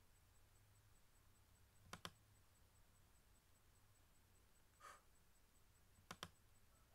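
Near silence with a faint low hum, broken by two computer mouse clicks, each a quick press and release, about two seconds in and about six seconds in, the second one stopping the media player. A short breath comes near five seconds.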